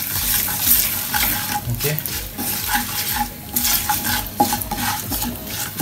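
Tadka of mustard seeds, cumin, dried red chilies, curry leaves and turmeric sizzling and crackling in hot coconut oil in a non-stick kadai, with a stirring utensil scraping and clicking against the pan.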